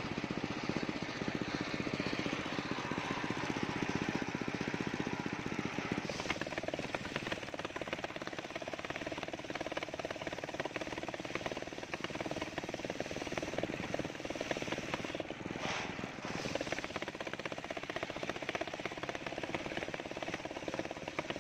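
Engine-driven circular sawmill running steadily, its large blade ripping lengthwise through sengon (albizia) timber. The sound changes about six seconds in and dips briefly with a sharp crack near the last quarter.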